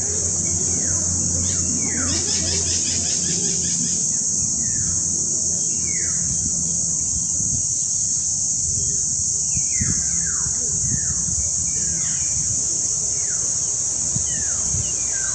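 A steady, high-pitched insect drone with many short bird calls that slide downward in pitch, repeated every second or so, over a low hum.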